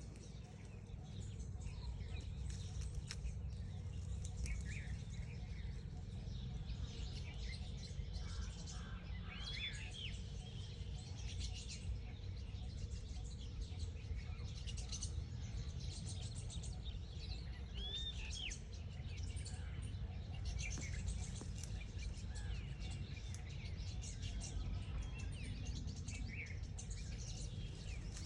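Birds chirping and calling with many short high chirps, and a couple of longer arching calls about ten and eighteen seconds in, over a steady low rumble.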